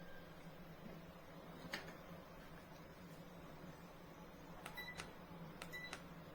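Two short, high electronic beeps about a second apart, each with a click, over a faint steady hum, after a single click earlier on.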